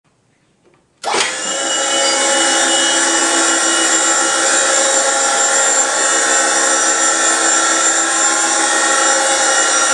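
A motor-driven machine starts abruptly about a second in and runs steadily at an unchanging pitch.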